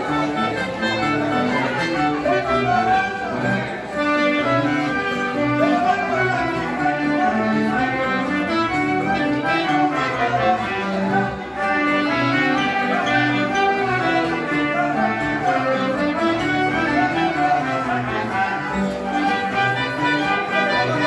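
A live folk dance band playing a contradança tune.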